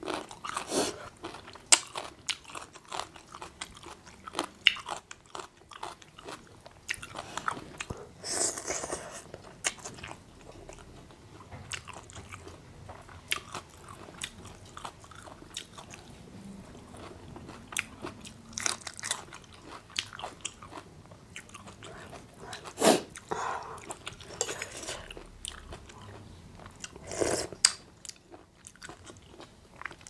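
A person eating a spicy Thai instant-noodle seafood salad with shrimp: repeated biting and chewing, with a few louder mouth sounds about nine seconds in and twice near the end.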